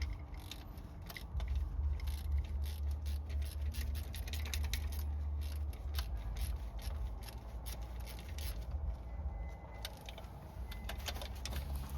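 Metal tool and bolt clicks and scrapes as a carburetor mounting bolt on a 1969 Chevy C10 is fed into place and fastened. Many sharp irregular ticks run over a steady low rumble.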